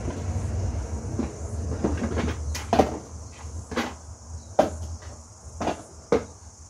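Irregular metallic clunks, about one a second, as the hit-and-miss engine's valve-rod spring is adjusted by hand. Under them a low hum fades away in the first half.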